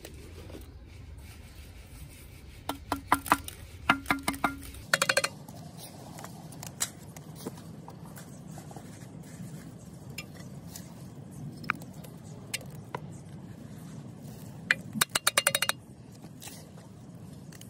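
Hollow red ceramic facing bricks clinking and knocking as they are set into fresh mortar around a steel post: clusters of sharp, ringing taps about three to five seconds in and a quick run of taps near the end.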